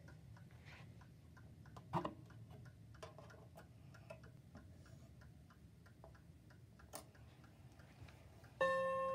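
Seth Thomas mantel clock ticking steadily, with a sharp click about two seconds in and another near seven seconds as the minute hand is moved by hand. Near the end the chime rods start to ring out the quarter-hour chime, several clear ringing notes that are much louder than the ticking.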